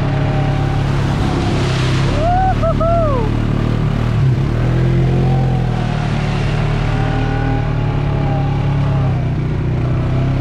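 Vehicle engine running steadily. About two seconds in comes a short, high, wavering call that rises and falls three times.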